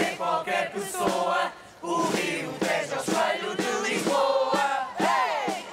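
A group of voices singing and chanting together in short phrases, with a short pause about a third of the way in and one voice swooping up and down near the end.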